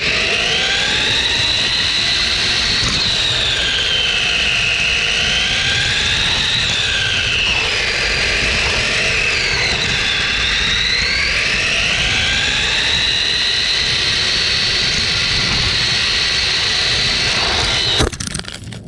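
RC car's electric drive motor whining as heard from a camera mounted on the car. The whine is high and rises and falls in pitch several times as the car speeds up and slows, over a steady low rumble, and it cuts off suddenly near the end.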